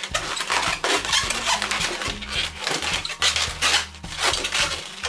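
Inflated latex 260 modelling balloons rubbing against each other and against hands as they are handled and twisted, a quick run of irregular rubbing strokes. Soft background music with steady low notes runs underneath.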